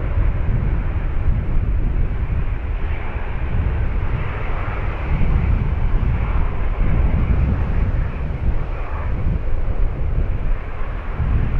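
Airbus A330-300 jet airliner's engines making a loud, steady rumble.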